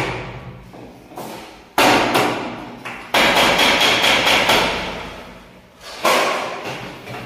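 Loud bangs and clattering from work on a new metal window frame and grille. There are four sharp knocks, and the third is followed by about a second and a half of rattling.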